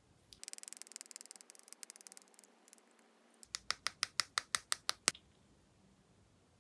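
Slime being played with by hand: a couple of seconds of fast, crisp crackling clicks, then a quick series of about nine sharp clicking pops.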